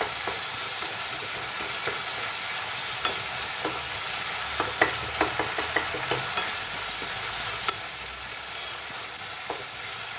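Chopped tomatoes and onions sizzling in oil in a non-stick pan, frying down until they soften and mash. A wooden spatula stirs them, scraping and tapping against the pan at irregular moments over the steady sizzle.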